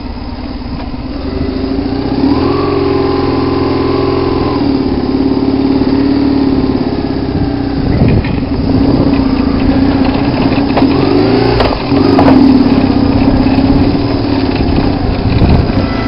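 Motorcycle engine running under way over sand and gravel. The revs rise about two seconds in and hold, then drop and pick up again around the middle and near the end.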